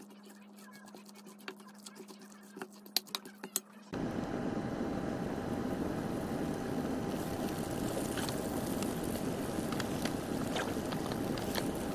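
A spoon clicking and scraping against a stainless steel bowl as kimchi pancake batter is mixed. About four seconds in, it gives way to a steady, louder sizzle as the batter fries in oil in a hot pan on medium heat.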